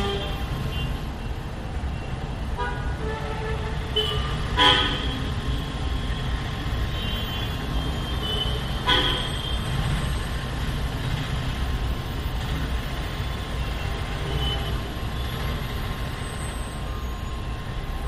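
Road traffic heard through closed windows from a third-floor flat: a steady low engine rumble with repeated vehicle horn honks, the loudest about four and a half seconds in, others near three and nine seconds, and fainter toots later.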